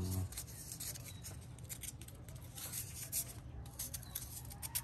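Spark plug being scrubbed clean by hand: a run of quick, irregular scraping strokes, with a short low hum right at the start.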